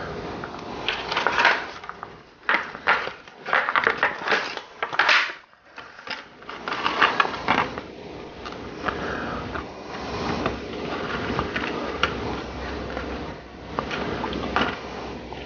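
Handling noise from egg-dyeing: crinkling and rustling with light clicks as a small plastic egg press and a paper-towel-wrapped egg are handled, in irregular bursts for the first eight seconds, then a softer, steadier rustle.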